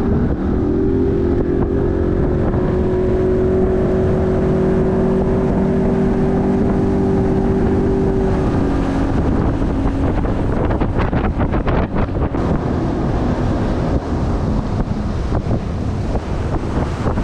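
Bass boat's outboard motor throttling up, holding a steady high pitch at speed, then easing off about eight seconds in, with wind buffeting the microphone as the boat slows. This is the engine's test run after a repair for a dropped cylinder, and it runs cleanly.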